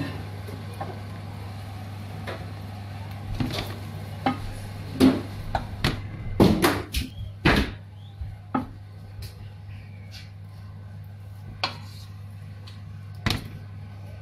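Wooden spoon knocking and tapping against a metal cooking pot and a plate as cooked greens are lifted out and spread, a quick run of knocks in the middle and two single taps near the end, over a steady low hum.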